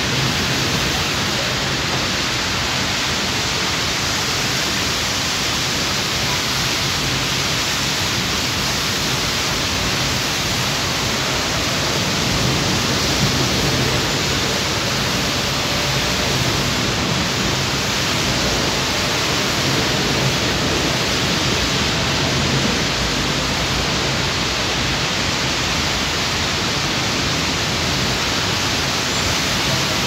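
Heavy rain falling steadily: a dense, even hiss with no breaks.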